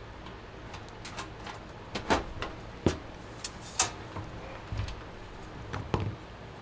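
Handling noise from a Fractal North PC case: a few sharp clicks and knocks as cables are pushed and pulled at the back panel, then a couple of duller thumps as the case is shifted on the desk.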